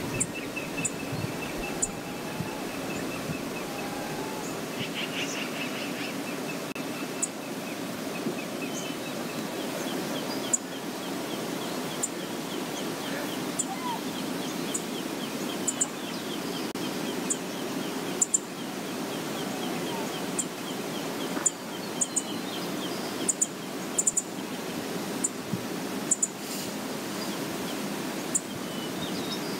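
Steady rush of flowing river water, with short high chirps from birds scattered through it.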